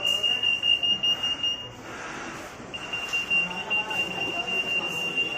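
C-36X RF 8.2 MHz EAS anti-theft gate alarm sounding one steady high-pitched tone. The tone breaks off a little under two seconds in and comes back about a second later. It is the signal that an active security tag is in the gate's detection zone.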